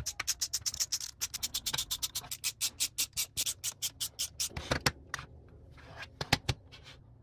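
Rapid, even clicking, about six clicks a second, from a screwdriver turning small screws into 3D-printed plastic parts. The clicking stops after about four and a half seconds, and a few louder knocks follow as the plastic parts are handled.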